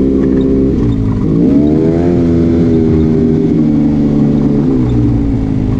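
Arctic Cat Wildcat Trail 700 side-by-side's single-cylinder engine running under way. Its pitch dips about a second in, climbs as it speeds up around two seconds, holds steady, then eases off near the end.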